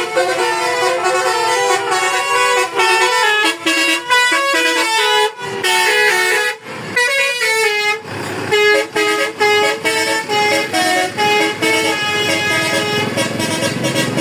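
Indonesian bus 'telolet' (basuri) melody horn playing a tune of stepped, multi-tone notes, broken about halfway through by a couple of short bursts of noise.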